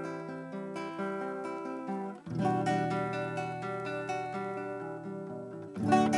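Acoustic guitar playing an instrumental piece in ringing picked and strummed notes. It breaks off for an instant about two seconds in, then comes back fuller with deeper bass, and a louder chord is struck near the end.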